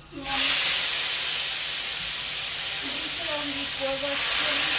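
Cooked beans ladled into hot oil in a frying pan, setting off a loud, steady sizzle that starts suddenly about a quarter second in.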